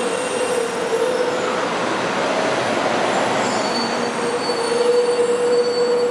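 Shinkansen train pulling into the station and braking, a steady rushing noise with a steady whining squeal held throughout.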